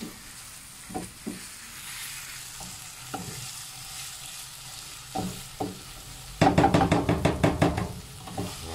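Wooden spatula stirring a sizzling mixture of ground meat, onion and tomato in a frying pan: a steady sizzle with scattered scrapes and taps of the spatula against the pan, then a louder run of rapid scraping strokes for about two seconds near the end.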